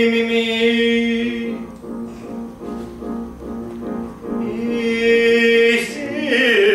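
A man singing with piano accompaniment: a long held note, a stretch of shorter notes, then another long held note that slides down near the end.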